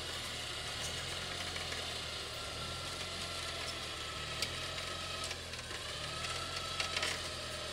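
An engine running steadily at idle, with a faint thin whine through the middle and a few light clicks.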